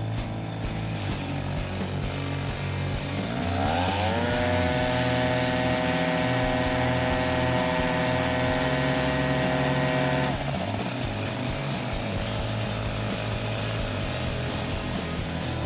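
Paramotor engine and propeller running at idle, then throttled up about three seconds in, held at a higher steady speed for about six seconds, and throttled back down to idle.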